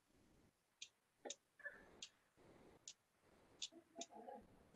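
Near silence broken by several faint, irregular clicks of computer input: mouse and keyboard clicking while expressions are copied and pasted on screen.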